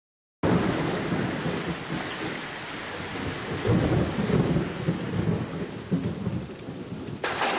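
Steady rain with rolling thunder, starting suddenly about half a second in; the thunder swells twice around the middle, and near the end the rain's hiss grows brighter and louder.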